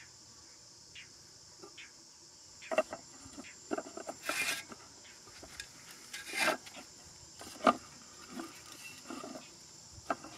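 Steady high insect drone, with scattered clicks, taps and rustles from hands working bamboo sticks, string and a plastic bottle; a short rustling scrape just before the middle and a sharp click about three quarters through are the loudest.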